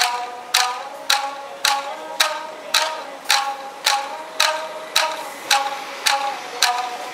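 Tsugaru shamisen ensemble playing in unison: sharp plectrum strikes at an even pace of about two a second, each note ringing out briefly.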